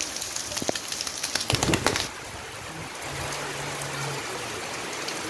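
Heavy monsoon rain with hands slapping and splashing a shallow rain puddle, a dense crackle of splashes that stops suddenly about two seconds in. Steady rain falls after that, more softly, and a low coo sounds for about a second near the middle.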